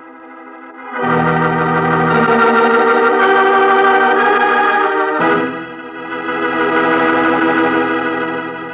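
Organ music bridge marking a scene change. A soft held note gives way about a second in to loud sustained chords, which move to a new chord about five seconds in and fade near the end.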